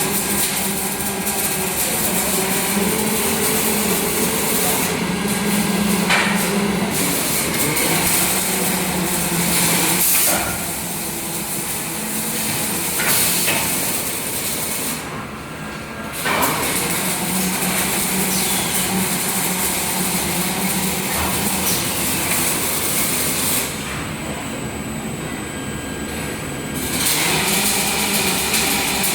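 Robotic welding arc crackling and hissing continuously over a steady machine hum, easing off twice for a few seconds.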